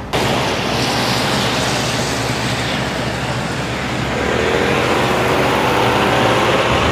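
Street traffic noise with a motor vehicle passing close by, its engine note rising from about four seconds in.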